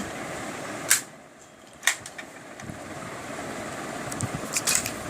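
Steady fan or air-conditioner hum, with two sharp clicks about one and two seconds in and a few small clicks near the end, as of a box and its small items being handled.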